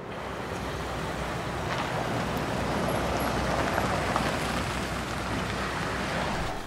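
A car driving slowly closer: steady engine and tyre noise that grows louder toward the middle, then eases slightly.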